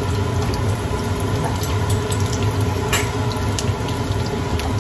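Egg-and-Parmesan-battered cauliflower florets frying in a little oil in a skillet: a steady sizzle, with a few light clicks of a fork against the pan.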